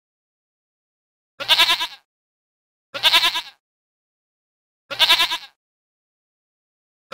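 Goat bleating three times, each bleat a short wavering call of about half a second, spaced about one and a half to two seconds apart.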